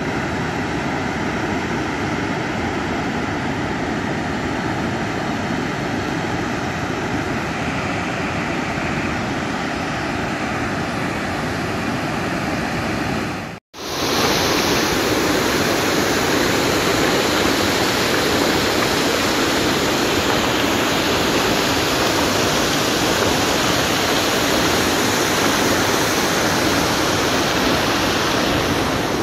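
Water rushing steadily over a dam's spillway gates and down the spillway. After a brief break about halfway through, it is louder and fuller, heard from just above water pouring over a gate into a concrete channel.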